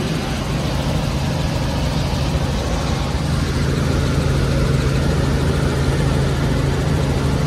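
Helicopter in flight heard from inside the cabin: a loud, steady drone of engine and rotor with a low hum, getting a little louder about three seconds in.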